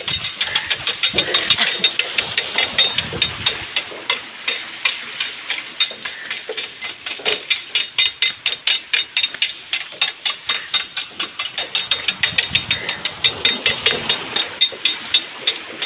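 Hand-pushed Persian wheel (rahat) turning over a well: its gear wheel and ratchet clatter in a fast, even run of clicks, several a second, as the bucket chain lifts water.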